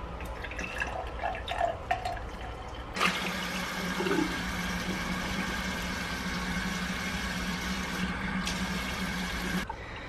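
Vinegar poured from a plastic bottle into a small plastic container, heard as faint trickling and clicks. About three seconds in, a kitchen faucet starts running into the container, a steady rush of water filling it, and it shuts off shortly before the end.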